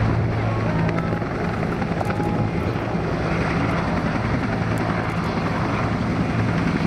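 Military helicopter running steadily, its rotor beat and turbine making a continuous low drone.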